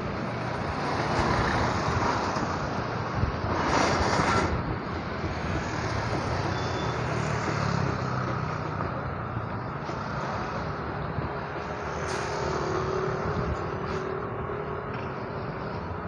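Road traffic noise: steady rumble and hiss of passing motor vehicles and motorcycles, rising to a louder pass about four seconds in, with a faint steady hum in the last few seconds.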